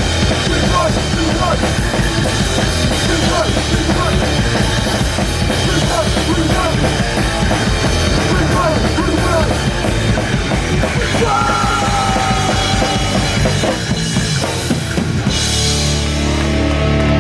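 Live punk rock band playing loud, with the drum kit pounding steadily; near the end the drumming breaks off on a cymbal crash and a held guitar chord rings out.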